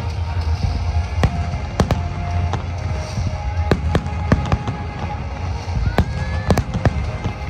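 Aerial fireworks bursting: an irregular run of sharp bangs and crackles, several a second, over a continuous low rumble.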